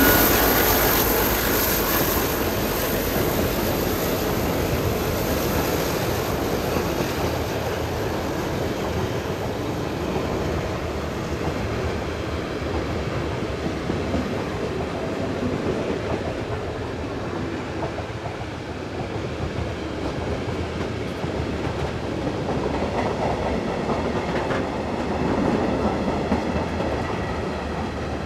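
Freight train rolling past at close range: the diesel locomotive's engine fades away over the first couple of seconds, then a steady rolling rumble of the freight wagons' wheels on the rails.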